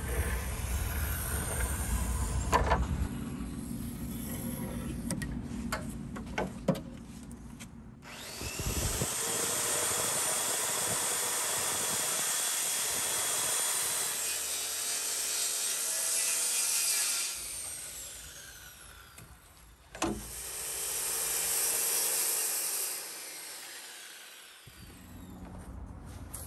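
Circular saw cutting a strip off the edge of a pine dresser top. The saw starts suddenly and runs steadily through a cut of about nine seconds, then winds down. A click follows, then a second, shorter run of a few seconds that also winds down. Some knocks and clicks come before the first cut.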